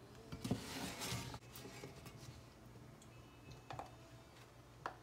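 Faint clicks and scrapes of a slotted spoon against a frying pan and plate as sticky honey-coated fried cookies are scooped out, with two sharper clicks near the end.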